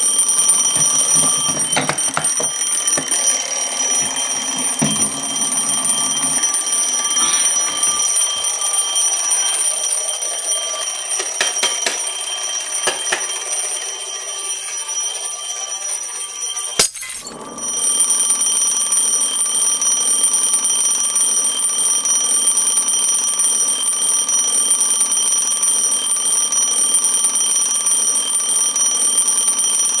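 Twin-bell alarm clock ringing without stopping, a steady high ring, with handling knocks during the first half. About halfway through there is a sharp knock, the ringing dips for a moment, and then it rings on as before.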